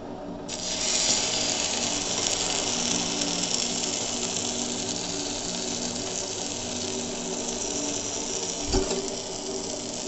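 Egg-and-milk-soaked bread slice sizzling in butter on a hot flat pan; the sizzle starts abruptly about half a second in as the slice goes down, then holds steady. A short knock near the end.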